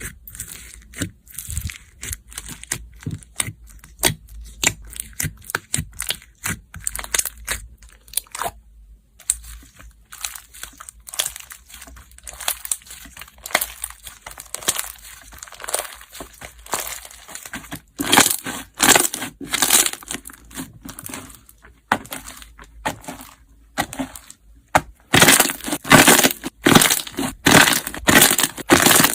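Hands squeezing and pressing slime mixed with pieces of ice, giving dense crunching and crackling clicks. The clicks grow loudest and thickest in two spells, about 18 seconds in and again from about 25 seconds in.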